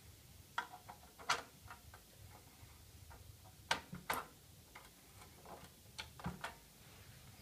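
Scattered light clicks and taps of a small plug-in circuit board being handled and pressed onto its connector on the amplifier's circuit board, a few sharp clicks spread irregularly over several seconds.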